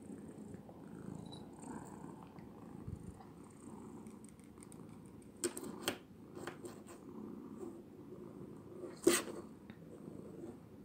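Kitten purring steadily, with a few sharp taps over it, the loudest about nine seconds in.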